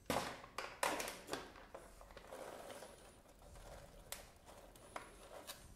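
Snack pouch of roasted puffs being handled and opened: crinkly packaging rustling in several short bursts, then softer rustling, with a few light clicks near the end.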